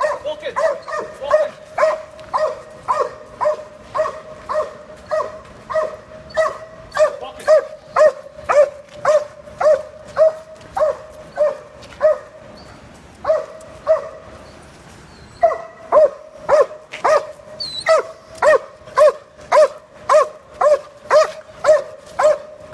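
A large dog barking steadily and rhythmically, about two barks a second, with two brief pauses near the middle.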